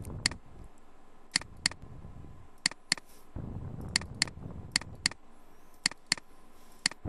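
Computer mouse clicking: about a dozen sharp clicks, mostly in quick pairs a quarter of a second apart, over a low background hum.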